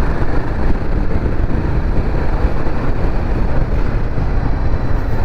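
Riding noise from a Royal Enfield Himalayan 450 motorcycle under way: a steady rush of wind over the microphone mixed with engine and road noise, with no distinct engine note standing out.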